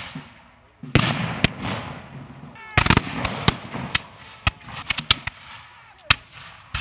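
Black-powder flintlock muskets firing in a ragged, uneven volley: a dozen or so sharp reports at irregular intervals, some close together, the louder ones trailing off in echo.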